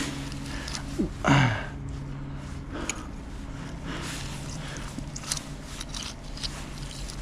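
Light scrapes and clicks of small scrap metal pulled up on the magnet being handled and picked over, over a low steady hum. About a second in, a man gives a short hum whose pitch falls.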